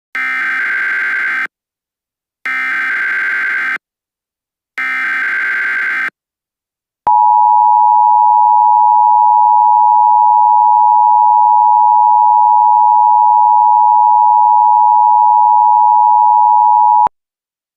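Emergency Alert System SAME header: three identical bursts of shrill digital data tones, each about a second and a half long, then the steady two-tone attention signal held for about ten seconds. Together they mark the start of an emergency alert broadcast.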